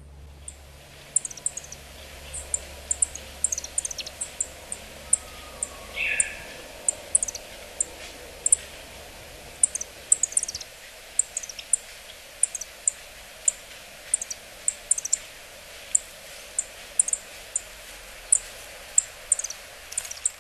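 Yellow-throated bunting calling: short, thin, high-pitched call notes, singly and in quick twos and threes, repeated irregularly. One lower, louder note comes about six seconds in.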